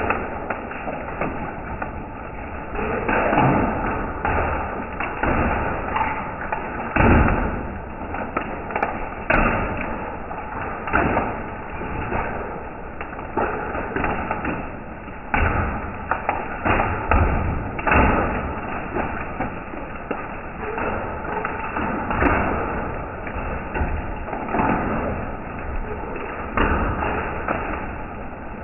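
Hailstones striking a concrete patio: irregular sharp knocks, a few a second, over a steady hiss of falling hail.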